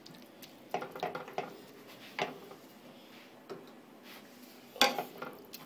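Plastic spatula scraping and tapping against a non-stick frying pan while breaking up ground beef, in scattered strokes with a louder knock near the end.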